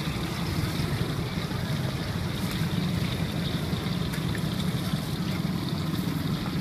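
Hot oil sizzling steadily around battered bananas deep-frying in a wok, under a steady low rumble.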